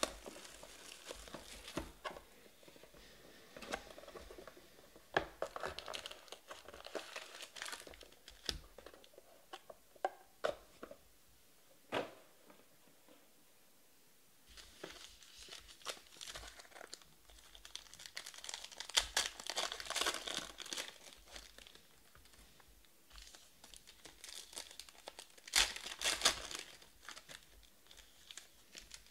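Trading card pack wrappers crinkling and tearing as they are handled and ripped open by hand, in irregular bursts with a few sharp clicks and a short quiet pause near the middle.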